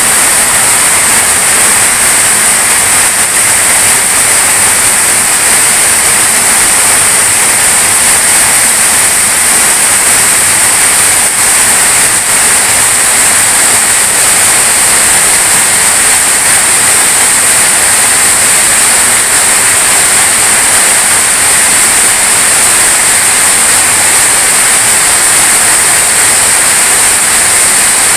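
Heavy tropical downpour: a steady, loud hiss of rain pouring through a tree's leaves and onto the roofs around.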